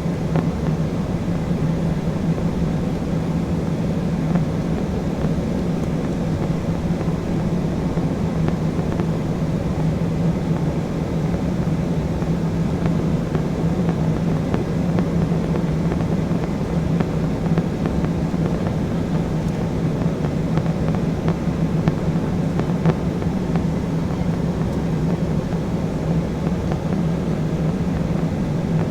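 Steady cabin noise of an Embraer E175 in flight: the drone of its General Electric CF34 turbofans and rushing airflow, with a constant hum underneath.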